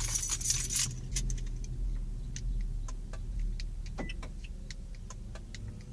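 Car keys jangling briefly at the start, then scattered light clicks and ticks over a steady low hum.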